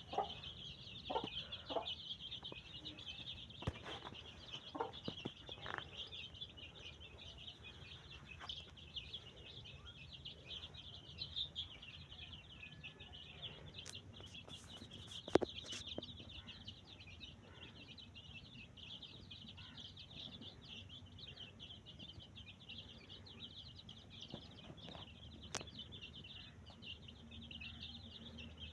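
A brood of chicks peeping continuously, a dense high-pitched chorus, with a few sharp clicks scattered through it.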